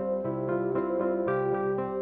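Background music: soft keyboard or synthesizer notes changing about twice a second, with no speech.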